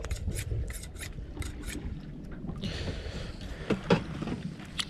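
A knife being drawn across a sharpener in quick rasping strokes, several a second, then a few separate knocks near the end.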